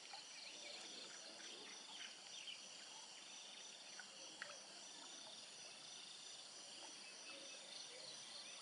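Faint, steady chorus of insects, typical of crickets, with a few short chirps over it.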